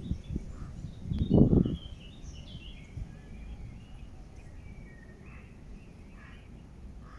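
Small birds chirping briefly and faintly, on and off, over low outdoor rumble. A louder low rumble swells and fades about a second and a half in.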